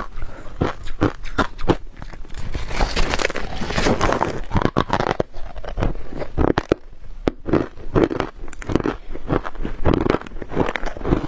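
Close-up crunching and chewing of a mouthful of freezer frost: a quick, uneven run of crisp crunches, denser and crackly for about a second and a half from three seconds in.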